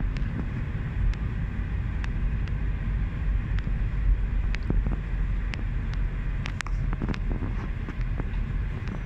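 Road and engine noise inside a moving car's cabin: a steady low rumble, with scattered light clicks and ticks.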